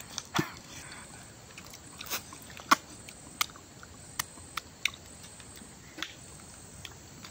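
Wet lip smacks and sucking as fingers are licked clean of chicken curry after eating by hand: a series of short sharp smacks, about eight in all, the loudest a little under three seconds in.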